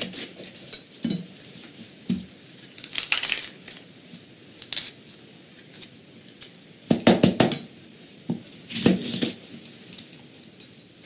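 A chef's knife cuts up an orange bell pepper on a paper-lined cutting board. Scattered crisp crunches from the pepper and knocks of the blade on the board mix with the crinkle of the paper. The loudest cluster comes about seven seconds in, and another near nine seconds.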